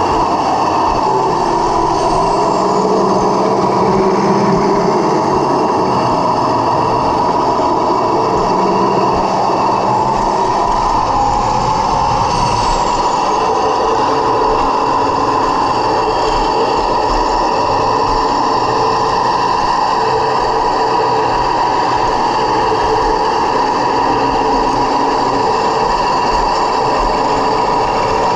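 1/16-scale Heng Long T-90 RC tank driving, heard from on its own hull: a steady whine from its electric drive motors and gearbox over the rattle of its tracks. About halfway through the whine dips and climbs back in pitch.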